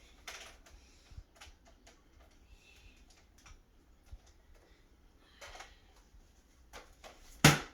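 Plastic clicks and light rattles of a Nerf blaster being handled, with a single sharp, louder click near the end.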